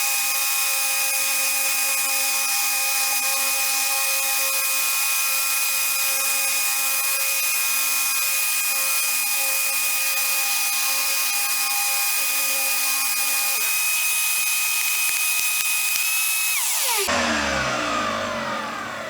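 A 6-inch Ridgid electric sander with 60-grit paper and a 5 hp Shop-Vac dust extractor running together with a steady high whine, sanding fairing compound. About 14 s in one motor cuts out, and about 17 s in the other is switched off and winds down, its pitch falling.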